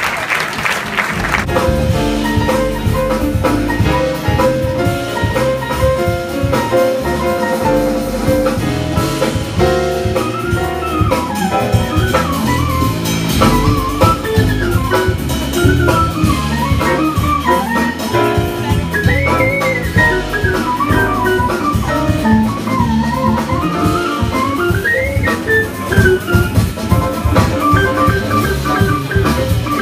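Live jazz band playing: drum kit and bass keep a busy groove under a lead line that winds up and down. The tail of applause fades out in the first second or so.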